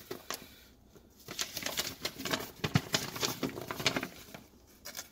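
Bubble wrap and paper rustling and crinkling as packed parts are handled and lifted from a cardboard box, a run of quick crackles and clicks after about a second that dies away near the end.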